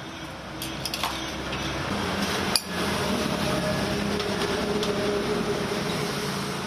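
Clinks and knocks of cups and crockery over a steady background din, with one sharp knock about two and a half seconds in.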